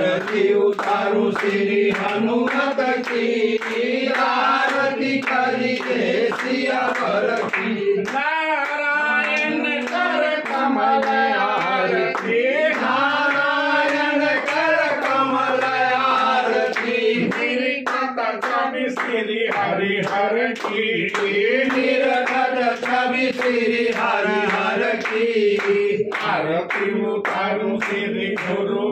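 A group singing a Hindi devotional hymn, with a steady clapped beat keeping time.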